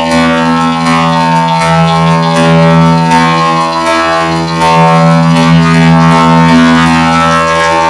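Loud, heavily effect-processed music: a steady droning chord held on one pitch throughout.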